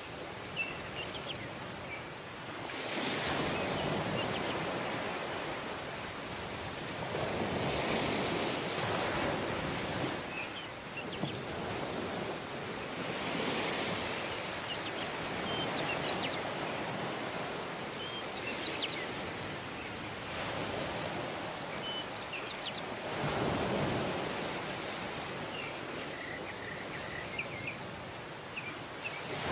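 Waves washing onto a tropical beach, the surf swelling and ebbing every few seconds. Faint short high chirps sound now and then over it.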